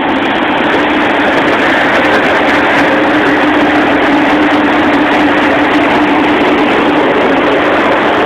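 Steady, loud machinery hum with a constant low drone running through it, from the cruise ship's deck machinery.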